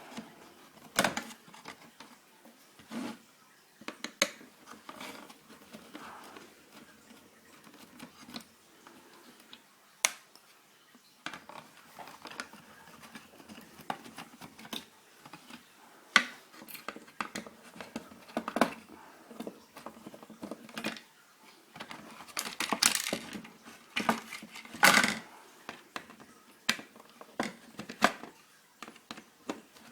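Scattered small clicks, taps and scrapes of an old landline telephone being taken apart by hand with a screwdriver: its screws unscrewed and the plastic case and circuit board handled. A couple of louder clatters come about three-quarters of the way through.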